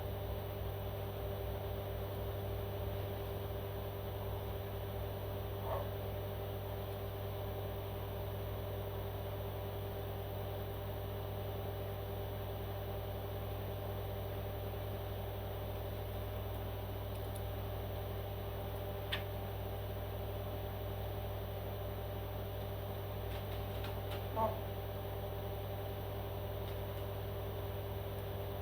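Steady machine hum with fixed tones, like a fan or an electrical appliance running. A faint click comes about nineteen seconds in, and brief faint sounds come about six and twenty-four seconds in.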